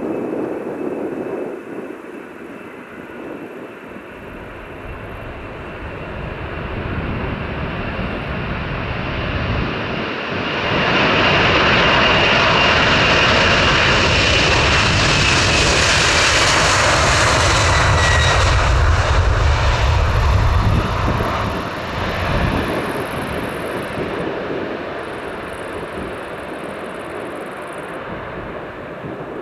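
Heavy jet airliner's engines at takeoff thrust passing by. The noise builds over about ten seconds and stays loud for about ten more, with a high whine that falls in pitch and a deep rumble, then fades away.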